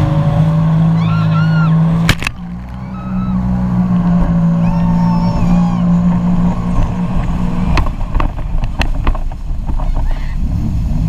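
Jet ski engine running at steady throttle, with a whine above the hum that rises and falls. A sharp knock about two seconds in is followed by a brief dip before the engine picks back up, and a quick run of sharp knocks comes around eight to nine seconds in.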